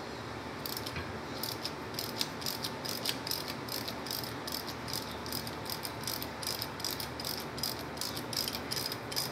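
Ratchet wrench clicking in quick, even strokes, about three a second, as it backs a bolt out of an electric golf cart motor's end cap.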